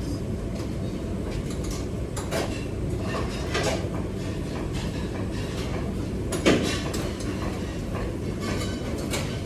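Busy commercial kitchen: a steady low rumble with scattered clatter of dishes, pans and utensils, the sharpest clank about two-thirds of the way through.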